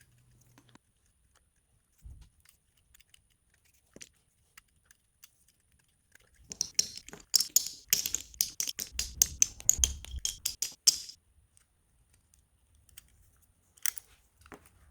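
Sharp hand tool cutting and scraping wood, heard as a quick run of crisp clicks and scrapes lasting about four seconds, starting about six and a half seconds in, with one more click near the end.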